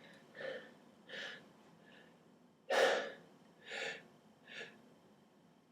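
A person's short gasping in-breaths, about six of them, the loudest near three seconds in: the catching breaths of a sneeze building up.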